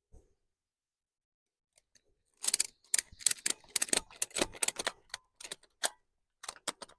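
Ratchet strap being tightened around a tree: the ratchet clicking in an irregular run of sharp clicks, starting about two and a half seconds in.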